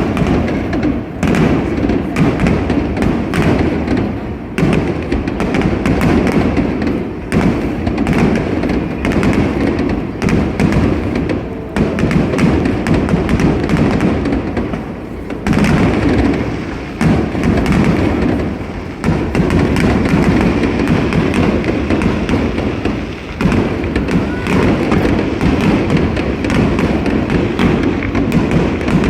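Aerial fireworks bursting in quick succession, a dense run of booms and crackles over a constant low rumble, with brief lulls now and then.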